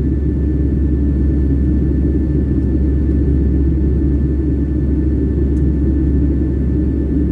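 Steady low rumble of an airliner's engines and airflow heard from inside the passenger cabin, with a faint steady whine above it.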